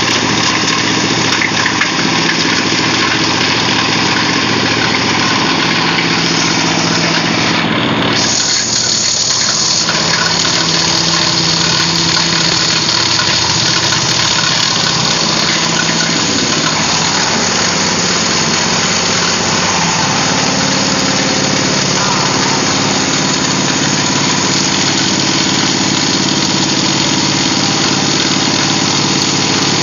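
Diesel-engine-driven plastic shredder running steadily, the engine running at a constant speed.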